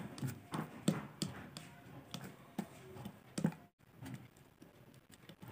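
Fingers spreading glue over a rubber cricket-bat toe guard on a plastic tablecloth, making faint, irregular light taps and clicks.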